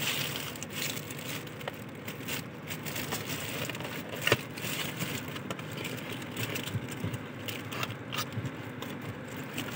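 Cardboard sweet box being pried open by hand, its flaps and the foil-and-cellophane wrapping crinkling and scraping with small crackles and one sharp click about four seconds in, over a steady hum inside a car.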